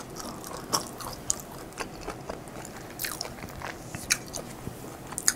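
Close-miked chewing of food, with irregular wet mouth clicks and small crunches.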